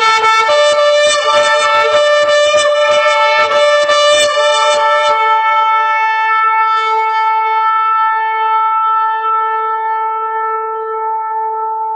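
Shofar blowing, several steady pitches sounding together: a run of quick broken blasts for about five seconds, then one long held blast that slowly fades.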